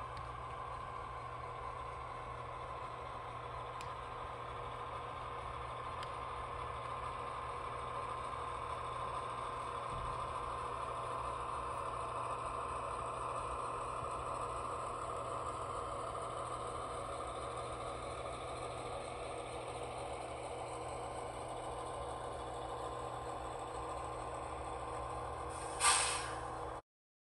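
Diesel locomotive engine sound running steadily as the freight train passes, swelling a little through the middle. A short loud hiss comes near the end, and then the sound cuts off suddenly.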